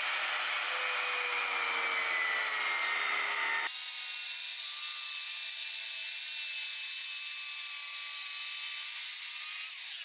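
Corded circular saw cutting through glued-up MDF. Its whine sags slightly in pitch as the blade works through the board, then changes abruptly about four seconds in to a thinner, higher running sound as the cut goes on.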